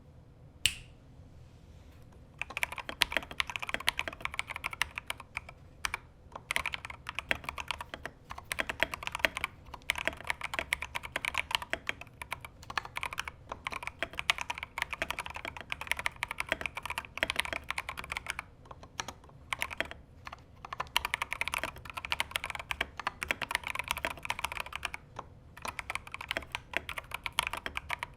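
Steady, fast typing on a MARVODIY Re-defined 68 mechanical keyboard with JWICK Yellow switches, Holee-modded stabilizers and Transpore tape. A single key click comes under a second in, then continuous typing starts about two and a half seconds in, with a few short pauses.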